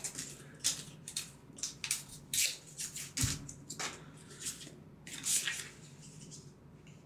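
Stiff game cards sliding against each other and rustling as a stack is handled and fanned out by hand: a run of short, crisp swishes, with a soft bump about three seconds in.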